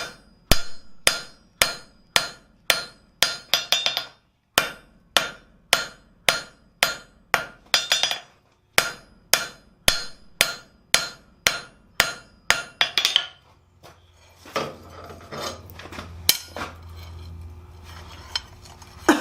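Hammer blows on steel as a tong half is drawn out, about two ringing strikes a second for some thirteen seconds. The hammering then stops, leaving a low steady hum and some scattered clatter, with one sharp hit at the end.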